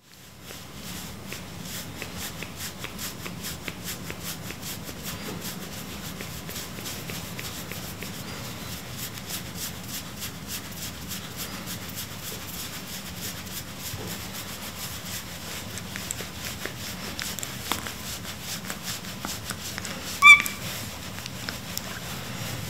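Tabby cat purring steadily while hands rub the fur on its face and cheeks. About twenty seconds in there is one brief high-pitched chirp.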